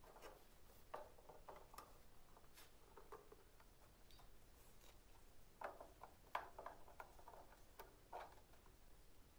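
Faint, scattered light clicks and taps of small wooden doors and hinges being handled and fitted on a wooden model car, busiest and loudest a little past the middle.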